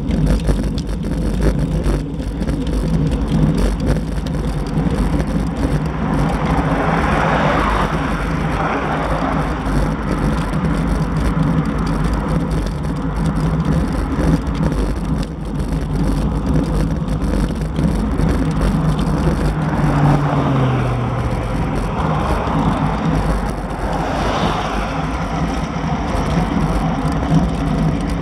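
Wind and road noise rushing over a bicycle-mounted camera while riding. Two motor vehicles pass, each swelling and fading, one about seven seconds in and another about twenty-three seconds in.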